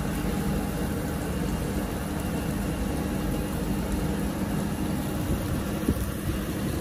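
Steady hum and hiss of ventilation fans around a tabletop hotpot, with a small click near the end.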